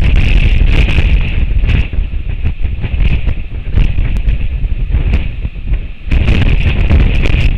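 Strong wind buffeting the microphone: a loud, low rumble that gusts and eases, with a brief lull about six seconds in.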